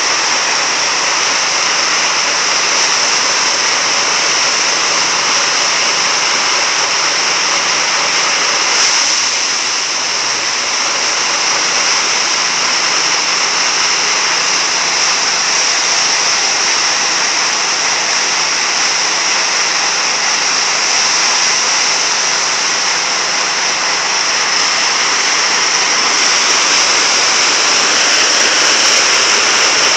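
Rice threshing machine running steadily, a loud, even mechanical noise with a strong high hiss.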